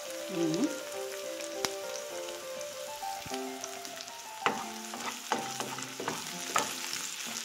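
Sliced onions sizzling in hot oil in a nonstick frying pan. From about four and a half seconds in, a wooden spoon scrapes and stirs them against the pan.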